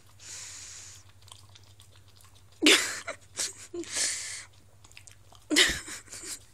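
A dog licking and chewing peanut butter stuck to its mouth: wet, sticky smacking noises in a few short loud bursts, one group a little before halfway and another near the end.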